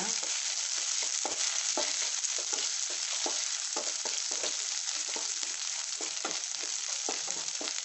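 Onions, curry leaves and green chillies sizzling in oil in a ceramic-coated kadai while a wooden spatula stirs and scrapes the pan in quick strokes, about twice a second. The ginger-garlic paste is frying off its raw smell before the tomato goes in.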